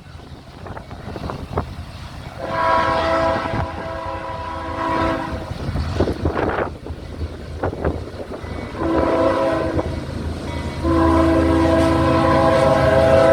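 Union Pacific freight locomotive's multi-note air horn sounding: a long blast starting about two seconds in, a shorter one around nine seconds, then another long blast from about eleven seconds that carries on, louder. Wind buffets the microphone, strongest before the first blast.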